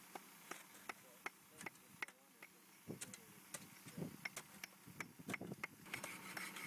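Faint sharp clicks at a fairly even pace, about two or three a second, with a low voice murmuring briefly about three to four seconds in.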